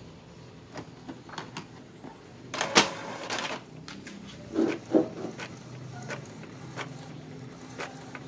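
Paper being loaded into an Epson L3110 inkjet printer and fed through its exposed mechanism: scattered plastic clicks, a sharp clack about three seconds in and two thuds around five seconds, over a low steady hum.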